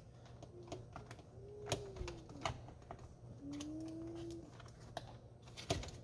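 Plastic dash trim around the instrument cluster being handled and pried loose: scattered light clicks and taps, with two faint squeaks of plastic rubbing in the first half.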